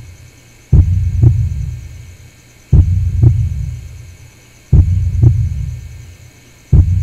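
Slow heartbeat sound effect: deep paired thumps, the second about half a second after the first, repeating every two seconds. Each pair fades away slowly over a faint steady drone. Three full beats, with a fourth starting near the end.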